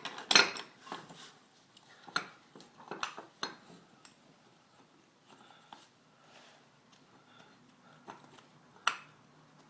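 Steel bushing-press parts clinking and knocking as collars and adapters are fitted and adjusted on a control arm: a handful of separate sharp metal clicks, the loudest just after the start and another near the end, with quiet gaps between.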